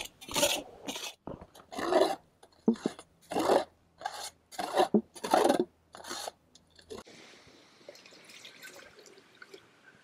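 Metal spatula scraping and stirring cornmeal roasting in a skillet, about a dozen uneven strokes. About seven seconds in this cuts off, and water trickles faintly into a coffee pot.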